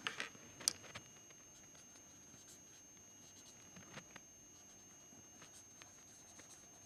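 Faint scratching of a pen writing on paper, with a few light taps of the pen.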